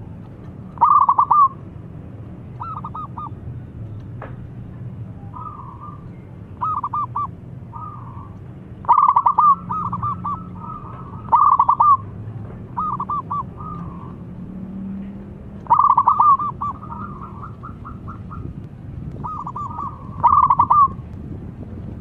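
Zebra dove (perkutut) singing: short phrases of rapid staccato cooing notes, repeated about eight times with gaps of a second or two.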